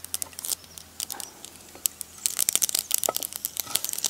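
Mustard seeds spluttering in hot oil in a clay pan: quick, irregular sharp crackles that grow denser about two seconds in, as curry leaves go into the tempering.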